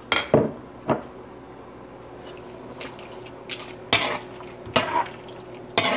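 Metal spoon knocking and scraping against a metal pan as bay leaves are worked into a simmering stew: several short clinks and knocks spread out, over a faint steady hum.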